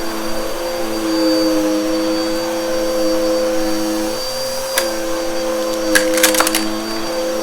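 Bissell vacuum cleaner running with a steady motor whine; the pitch dips briefly about four seconds in. A single sharp crack near the middle and a quick cluster of crackles a second later are debris being sucked up from a shag rug.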